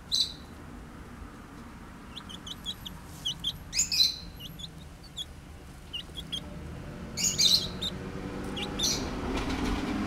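Young chicken dust bathing in dry soil: a few short scratchy rustles of shuffling wings and flung dirt, with scattered short high chirps between them. A low steady hum grows in the last couple of seconds.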